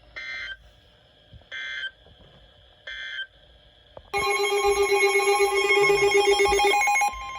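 Emergency Alert System alert opening: three short bursts of SAME header data about a second and a half apart, then the loud, steady attention signal starting about four seconds in. This is the start of a tornado warning broadcast.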